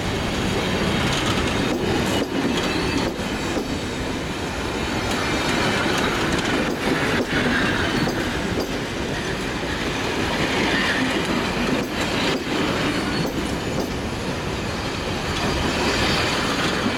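Passenger coaches rolling past close by, their wheels clacking over the rail joints in an irregular rhythm over a steady rumble.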